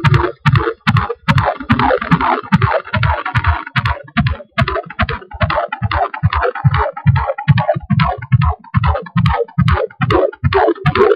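Angelsounds handheld fetal doppler picking up a 17-week fetus's heartbeat: fast, regular pulsing beats through the doppler's small speaker, about two and a half a second.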